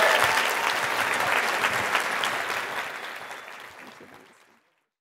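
Audience applauding, dying away steadily until it is gone about four and a half seconds in.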